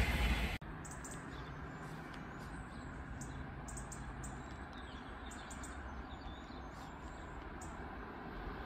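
Small birds chirping in short high calls over a quiet steady background. In the first instant the loud rush of a passing train is heard, then it cuts off abruptly. Near the end a low rumble begins to rise.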